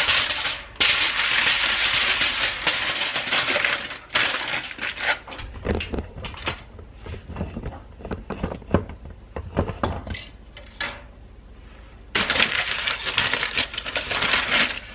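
Aluminium foil being crinkled and pressed around a cup: dense crackling for the first few seconds and again near the end, with sparser sharp crinkles and clicks in between.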